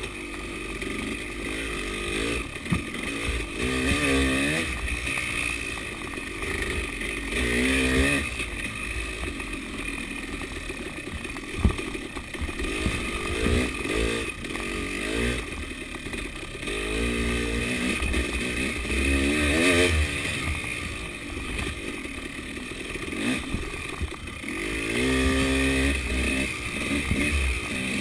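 KTM 300 two-stroke enduro dirt bike engine revving up and falling off again and again as it is ridden along a rough trail, with a few sharp knocks from the bike over the ground.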